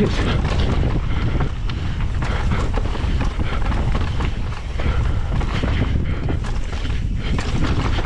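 Wind buffeting the camera's microphone over a mountain bike rolling fast down loose rock, with frequent small knocks and rattles from the tyres and bike over the rough ground.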